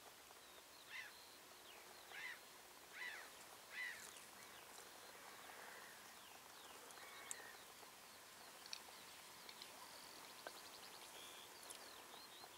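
Faint open-marsh ambience with a bird calling four times in the first few seconds, short calls falling in pitch about a second apart. Fainter chirps and a brief rapid trill follow later.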